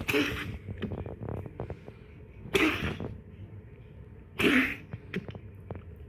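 A pet dog or cat coughing: three short, harsh coughs about two seconds apart.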